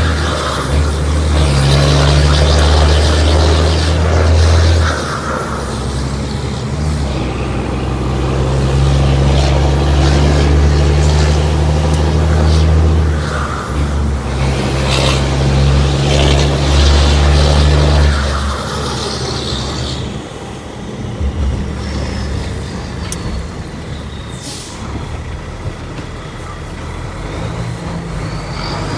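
Iveco 380 truck's diesel engine running loud, a deep steady drone held at a constant pitch. It eases off and gets quieter about eighteen seconds in.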